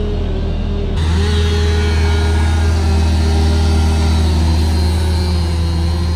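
Compact excavator's diesel engine running with a steady deep hum. The sound changes abruptly about a second in.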